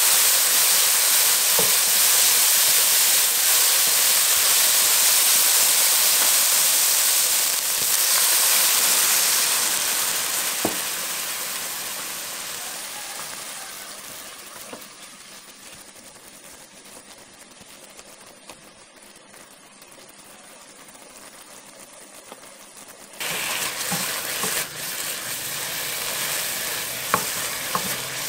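Ground chicken and diced carrot sizzling in a nonstick wok as a loud, steady hiss that fades over several seconds to a quiet simmer once water and sauce are in the pan. About 23 seconds in the sizzle comes back suddenly, with the spatula stirring and scraping the pan and a few light clicks.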